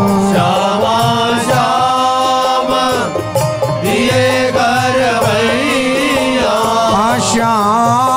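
Indian devotional music: a melody over a steady low drone.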